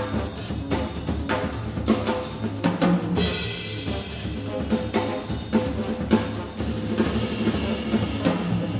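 Live jazz quintet playing: a drum kit with frequent snare and cymbal strokes drives the band, under saxophone and trombone with double bass and piano.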